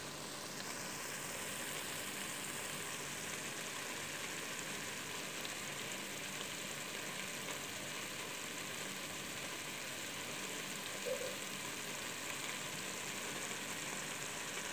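Chicken pieces cooking in a thick tomato and spice mixture in a pot, sizzling steadily, with one short pop about eleven seconds in.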